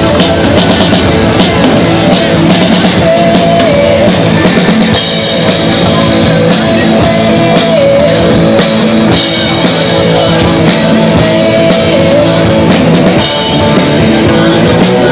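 Live rock band playing loudly: drum kit and electric guitars going at a steady beat.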